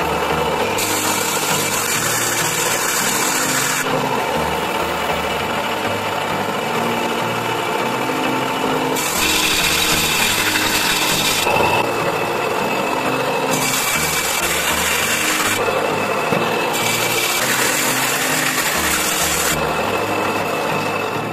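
A power tool working wood, running steadily throughout, with four spells of a few seconds each where a higher hiss comes in and drops away again.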